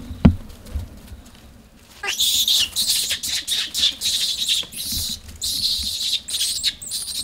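Young vervet monkey screaming in fear, a rapid run of high-pitched shrieks starting about two seconds in, as it is chased by an older juvenile without being attacked. A single sharp knock comes just after the start.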